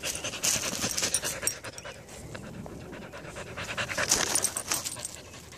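Dog panting close to the microphone, in quick rough breaths, in two louder bouts about a second in and about four seconds in.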